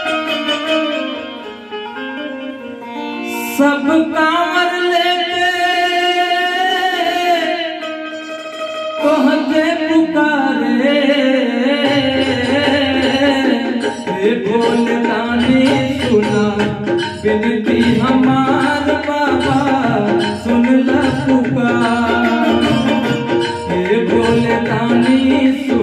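Roland XPS-10 keyboard playing a devotional bhajan melody, with a drum loop coming in about twelve seconds in and a man singing over it.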